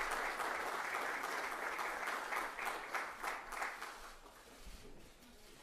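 Dinner guests applauding, the clapping thinning out and dying away about four seconds in.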